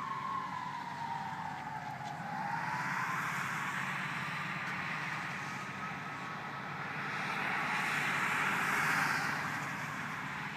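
A fire engine's siren wailing as the engine moves away: its pitch falls and fades over the first few seconds. Then tyres hiss on the wet road as cars pass, loudest about eight or nine seconds in.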